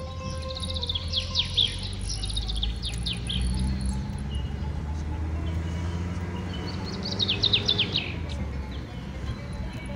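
A bird chirping in two quick runs of rapid, falling notes, one near the start and one about seven seconds in, over a steady low rumble.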